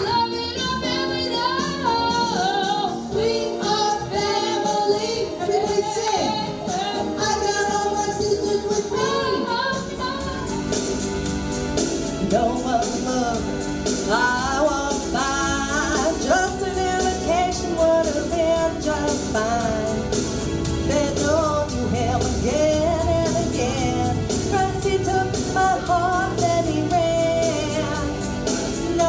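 A singer performing a song with instrumental backing; the backing grows fuller and deeper about ten seconds in.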